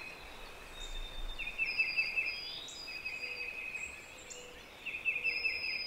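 Small songbirds singing in a dawn chorus: several fast, high trills repeating every second or so, with thin higher whistled notes between them, over a faint steady outdoor hiss.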